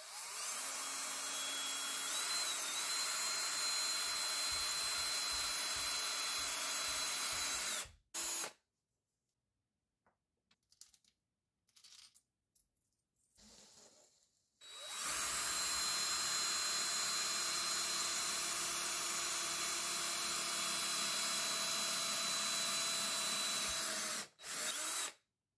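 DeWalt cordless drill boring through a 3/8-inch (10 mm) HDPE plastic sheet: two long steady runs of about eight and nine seconds, each with a high whine and a brief extra burst just after it stops. Between the runs it is nearly quiet, with a few faint small handling sounds.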